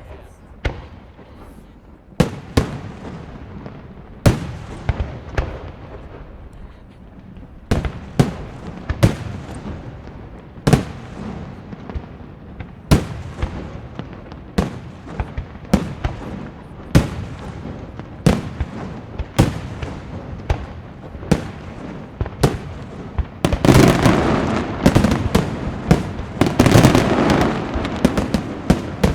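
Aerial firework shells from a Caballer FX night display going off one after another, sharp bangs about once a second with echoing rumble between them. About 23 seconds in it builds into a louder, dense barrage of many overlapping bursts.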